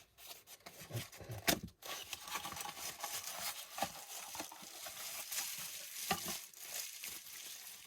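Rustling and light clicking from handling a small replacement lithium battery and its packaging, with one sharper click about one and a half seconds in.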